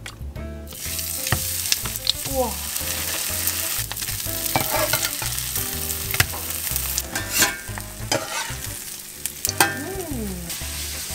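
Food sizzling in a hot frying pan, a steady frying hiss that starts about a second in, with a few light clicks of a utensil in the pan.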